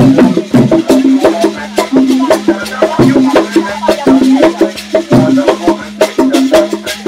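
Background music with a fast, steady percussive beat over held low notes that change about once a second.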